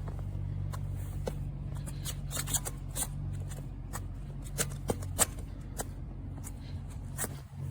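Light clicks and taps scattered irregularly over a low steady hum.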